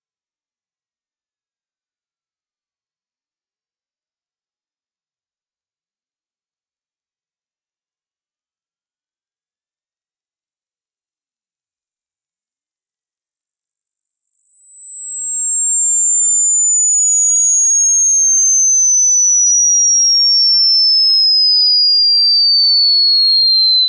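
A single pure sine test tone for a high-frequency hearing test, sliding slowly downward in pitch from a very high, near-inaudible whine to a high whistle. It cuts off abruptly at the end.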